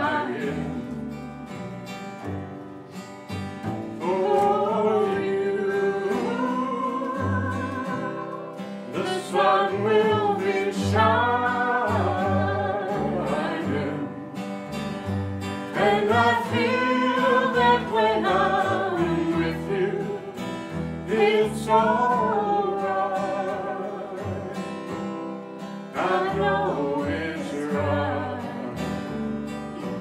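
A woman singing a slow ballad with long held notes, accompanied by acoustic guitar and plucked upright double bass.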